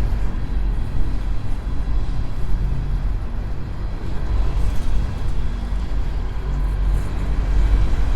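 Empty coal train of hopper cars rolling past: a steady, loud low rumble with faint steady tones above it.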